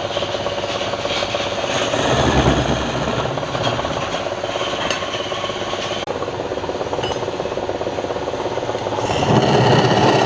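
A tool rasping and rubbing steadily against wood, a rough continuous scraping that swells louder twice.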